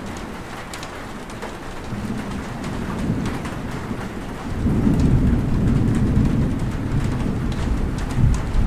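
Steady rain with scattered raindrop ticks, and a low rumble of thunder that swells about halfway through and rolls on.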